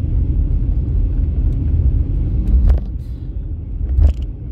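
Car driving on a snowy highway, heard inside the cabin: a steady low rumble of engine and road noise that eases a little about three seconds in, with two short knocks in the second half.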